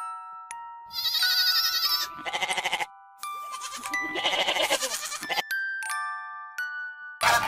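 Goat bleating, a few wavering calls in a row, over soft chiming background music.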